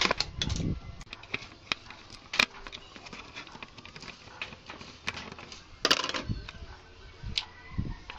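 Scattered clicks, taps and knocks from a circuit board and screwdriver being handled inside a stereo system's metal chassis, with a denser rattle about six seconds in.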